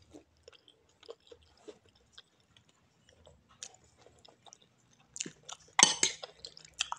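Close mouth sounds of a person chewing soft lontong sayur (rice cake in vegetable curry), with small wet clicks. About six seconds in, a louder cluster of clinks as the metal spoon scoops from the ceramic bowl.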